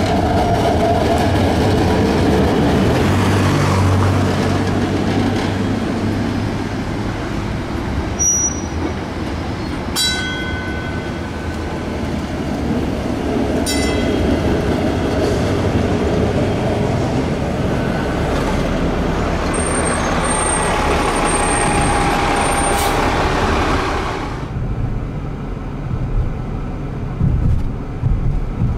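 A PCC streetcar rolling past on its rails, a steady rumble and rush of wheel and running noise, with two short high ringing sounds near the middle and a thin high squeal a little later. About four-fifths of the way through the sound drops to a quieter, lower rumble heard from inside a car.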